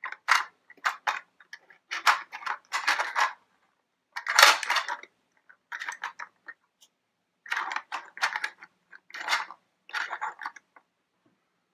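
Small plastic toy vehicles handled and moved about on a plastic playset: irregular clusters of light clicks, rattles and scrapes with short pauses between them.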